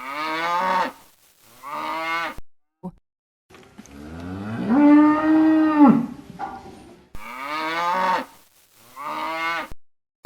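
Cow mooing: two short moos, then one long drawn-out moo that rises, holds and falls, then two more short moos.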